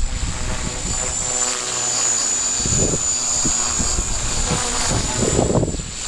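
A motor's steady droning hum, with gusts of wind buffeting the microphone about three seconds in and again near the end.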